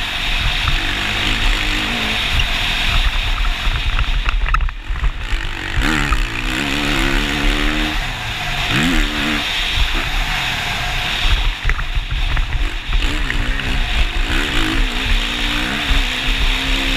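2019 Kawasaki KX450 single-cylinder four-stroke motocross engine, repeatedly revving up and falling off as the rider opens and closes the throttle, with a brief drop in the engine note about five seconds in. A steady rush of wind noise on the helmet camera sits under it.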